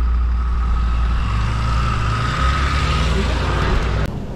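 Four-wheel drive's engine running while driving, heard from inside the cab: a steady low drone with a faint whine over it. It cuts off abruptly near the end.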